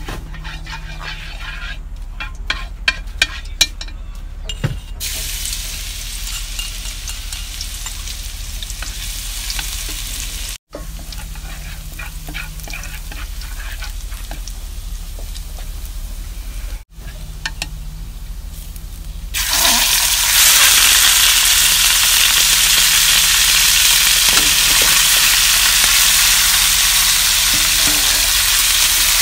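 Pieces of rat meat sizzling as they fry in a pan, the hiss growing much louder about two-thirds of the way through. A few sharp clicks come just before the sizzling starts.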